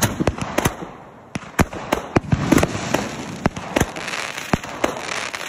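A 200-gram consumer firework cake firing: a rapid, irregular string of sharp bangs as its shots launch and break, over a continuous rushing, crackling noise.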